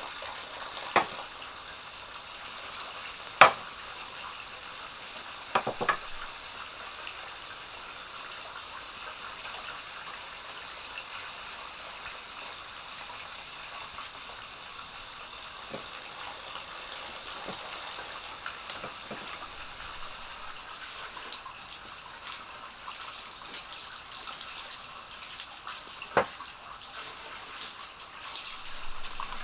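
A steady hiss of running water, with several sharp snaps as green leaf strips are split and handled by hand, the loudest about three and a half seconds in.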